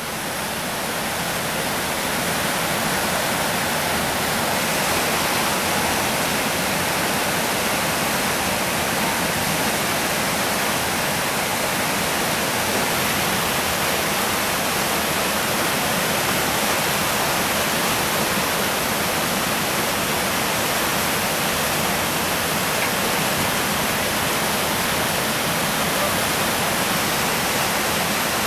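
Whitewater rapids rushing steadily: a dense, unbroken wash of river noise that builds slightly over the first couple of seconds and then holds even.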